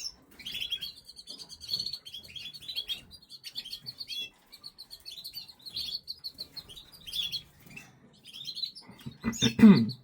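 Canaries chirping and twittering in quick short calls and trills. A brief louder, lower noise comes near the end.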